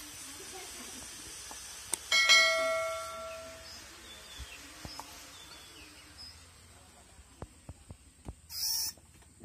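A single ringing tone, struck once about two seconds in and dying away over about a second and a half. Near the end come a few faint clicks and a short, sharp hiss.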